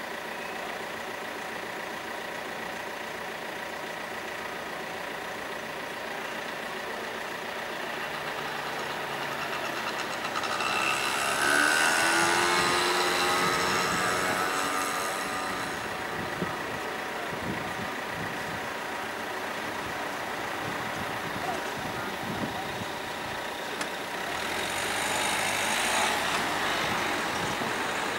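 Road vehicles passing: one goes by loudly from about ten to sixteen seconds in, with a rise and fall in pitch, and a second, weaker one passes near the end, over steady background noise with a faint high tone.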